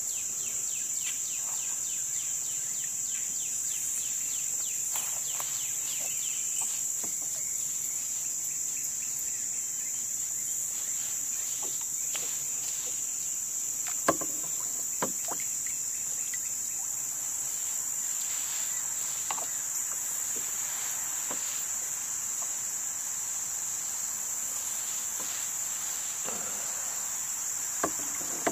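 Cicadas singing in a steady, high-pitched chorus, with a few bird chirps near the start and a handful of sharp knocks, the loudest about halfway through.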